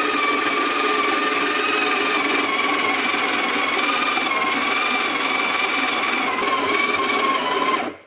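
Breville Smart Grinder Pro's conical burr grinder motor grinding coffee beans for espresso, a steady whine whose pitch wavers slightly, cutting off suddenly near the end as the timed grind finishes. The motor is struggling a little, as it does on medium-to-light roasts.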